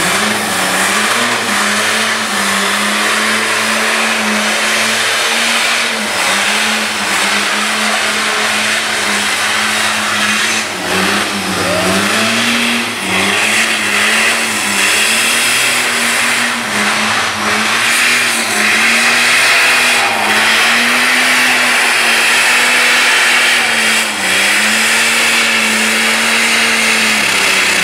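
1949 Ford F1 race truck's twin-turbo diesel engine held at high revs through a burnout and donuts. Its note stays near steady, with brief dips and recoveries every second or two, over the steady hiss of spinning rear tyres.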